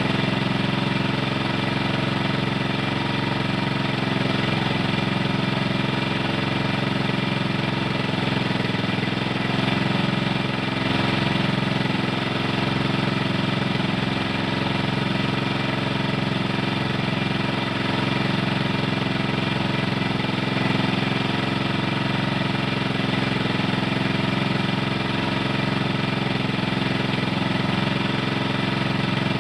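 Small engine running steadily at constant speed, an even drone with no change in pitch.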